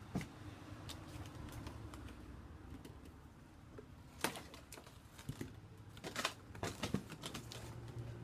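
Cardboard packaging and a canvas print being handled: scattered knocks and clicks as the print is worked out of its shipping box, the loudest about four seconds in and a quick run of them near the end.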